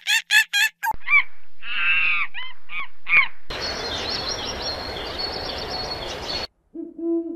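Several animal calls spliced one after another: a quick run of short pitched calls, then a few higher arching calls, then a stretch of hissing noise with high chirps over it. Near the end a steady owl hoot begins.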